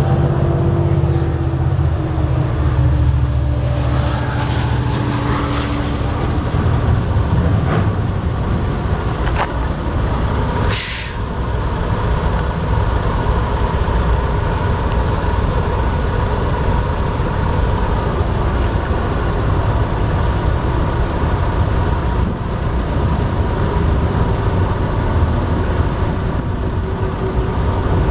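Train noise: a bilevel passenger train passing, with a tone that falls and fades over the first few seconds. Under it a steady low rumble runs on, with a short sharp hiss near the middle.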